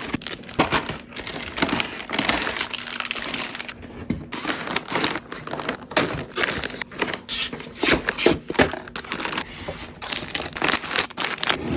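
Packaging handled up close: crinkling and rustling, with many quick clicks and taps.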